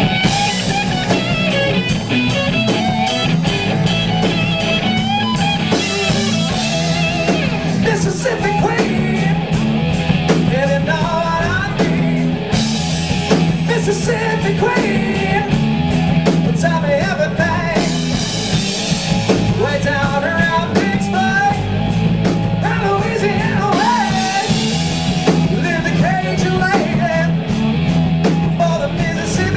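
Live rock band playing a song: a male singer with electric guitars, bass guitar and a drum kit, loud and steady.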